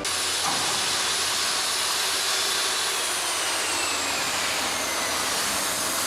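Steam locomotive venting steam: a loud, steady hiss that starts suddenly, with a faint thin tone inside it slowly falling in pitch.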